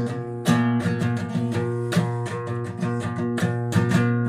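Guitar accompaniment playing between sung lines: regular strummed chords with no voice, about three or four strums a second.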